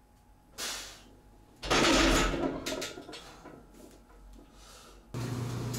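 Heavy exhales from a lifter lying under the bar after a heavy paused bench press set: a short breath about half a second in, then a loud, longer one about a second and a half in that trails off. Near the end a steady low hum starts suddenly.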